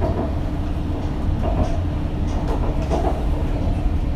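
Alstom metro train of Nanjing Metro Line 2 running at speed on an above-ground line, heard from inside the car: a steady low rumble with a steady hum and a few faint clicks from the wheels on the rails.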